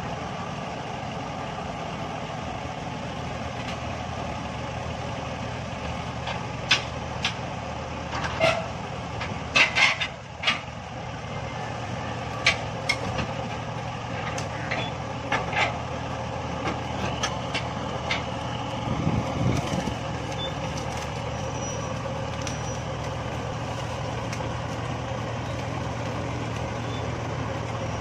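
Shibaura SD 2200 tractor's diesel engine running steadily under load as the tractor drives along. Scattered sharp clanks and knocks are heard in the first half.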